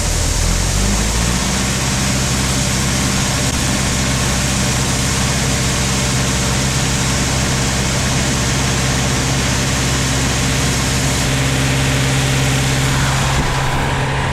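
Truck engine running steadily after being jump-started, its speed rising a little about a second in and then holding at a steady idle.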